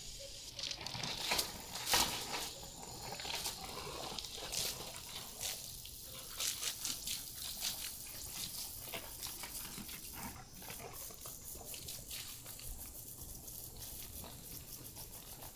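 Foaming soap solution sputtering and crackling out of a hose and brush of a homemade foaming car-wash system, a continuous fizzy hiss full of small pops, with a few sharper clicks in the first couple of seconds.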